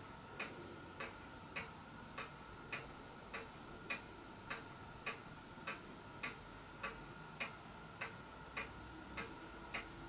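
Faint, even ticking of a clock, a little under two ticks a second, over a faint steady high tone.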